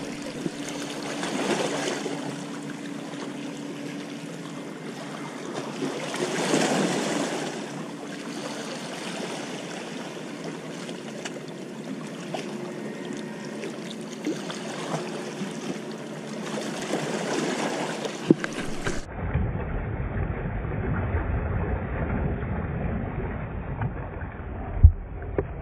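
Sea water washing against the boulders of a harbour breakwater, swelling now and then as waves break, with a faint steady hum through the first few seconds. About three-quarters of the way through the sound turns abruptly duller and more muffled, with a low rumble and a sharp knock near the end.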